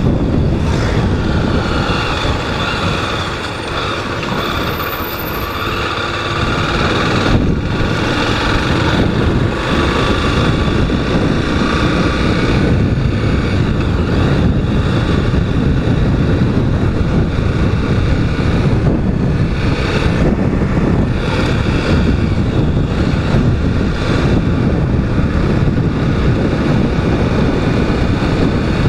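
Honda Twister motorcycle's single-cylinder engine running while riding, with heavy wind noise on the microphone. The sound eases slightly a few seconds in, then holds steady.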